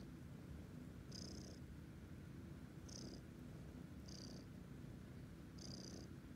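Young tabby kitten purring steadily and faintly while it kneads a fleece blanket with its front paws.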